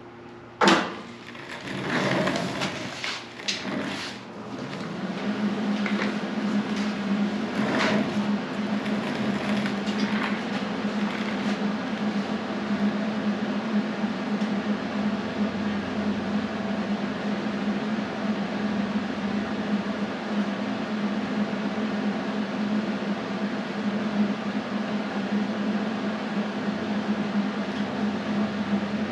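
A few sharp knocks and clatters of metal, then a motor starts and runs with a steady low hum.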